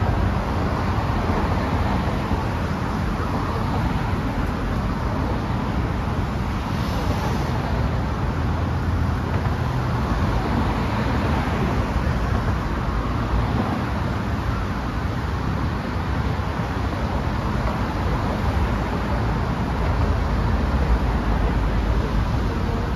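Steady road traffic noise: a continuous rumble of passing cars, heaviest in the low end.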